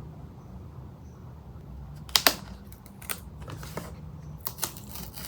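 Packaging being handled: a handful of sharp clicks and taps, two close together about two seconds in and the rest spread over the next few seconds, over a low steady hum.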